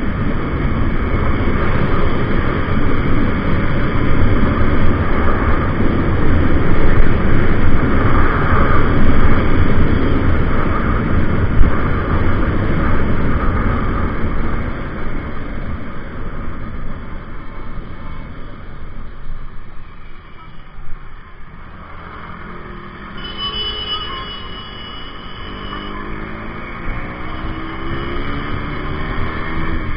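KTM RC 200 single-cylinder sport bike ridden fast in traffic, heard from a helmet camera: heavy wind rush over the engine, easing about halfway through as the bike slows, with the engine note climbing in pitch near the end.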